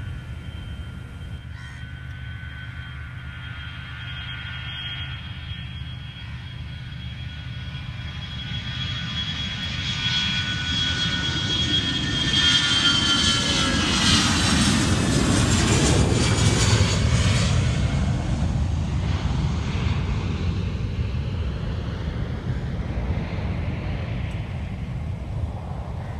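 Jet airliner passing close by, its engine noise swelling to a peak about two-thirds of the way through and then fading. A high engine whine drops in pitch as it goes past, over a broad rumble.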